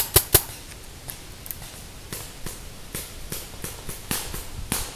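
Paintball markers firing: a quick volley of three sharp pops at the start, then scattered fainter shots from farther off, with another louder shot near the end.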